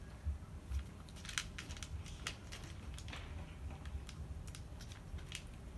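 Cats chewing cat food, with irregular sharp crunches.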